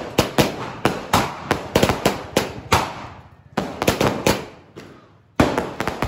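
Diwali firecrackers bursting in a rapid, irregular run of sharp bangs, several a second, each with a short trailing echo, broken by two brief lulls.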